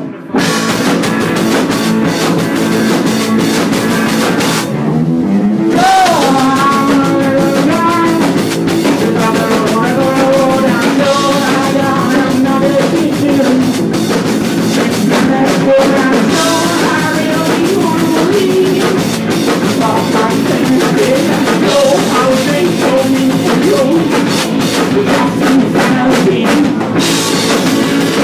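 Garage rock band playing live and loud: drum kit, distorted electric guitars and a singing voice that comes in about six seconds in.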